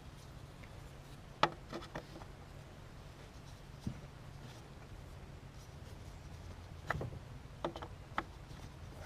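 Faint clicks and light taps of an oil filler cap and fill tube being handled, in small clusters about a second and a half in and again near seven to eight seconds, over a low steady hum.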